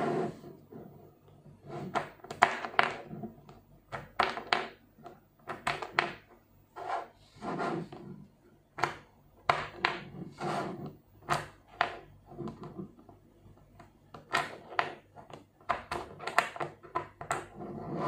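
Small 5mm neodymium magnetic balls clicking and clacking as they are snapped together and shifted by hand, with irregular sharp clicks and short scraping rustles.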